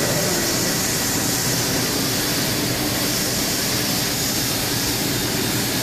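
Workshop machinery running: a steady, loud rushing hiss that does not change.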